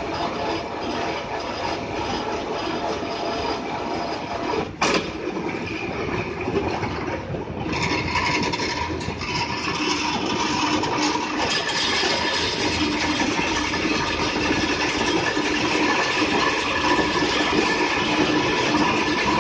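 Steel bar roller machine running: a steady mechanical hum and grind of motor and rollers, with one sharp clank about five seconds in.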